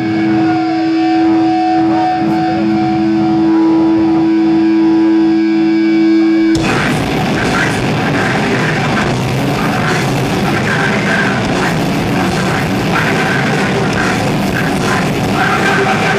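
Live hardcore/powerviolence band: distorted electric guitar notes held and ringing through the amps, then about six and a half seconds in the full band crashes in at once, a dense, loud, fast wall of guitars, drums and shouted vocals.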